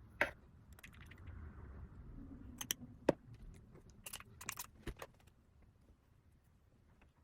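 Small hard clicks and taps of makeup items being handled, about a dozen sharp ones over the first five seconds, then quiet handling.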